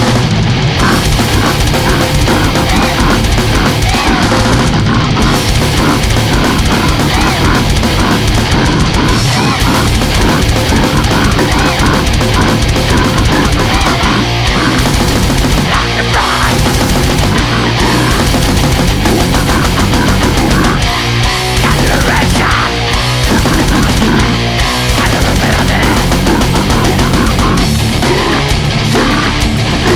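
Extreme metal band recording: heavily distorted guitars, bass and fast, dense drumming, with a few short breaks in the riffing.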